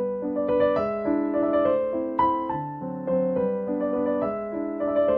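Background keyboard music: a gentle melody of separate notes, a new one every third to half second, over lower held notes.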